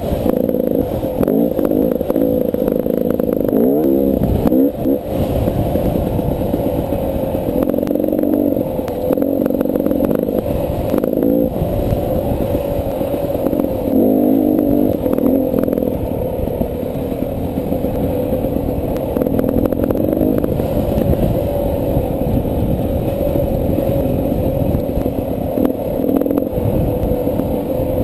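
Beta 300 RR two-stroke dirt bike engine running under load, its pitch rising and falling repeatedly as the throttle is worked along the trail, with scattered clattering knocks.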